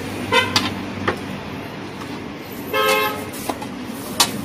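A short vehicle horn toot about three seconds in, the loudest sound, over a steady hum of street traffic. A few sharp clanks of a metal spatula on a flat-top griddle come now and then.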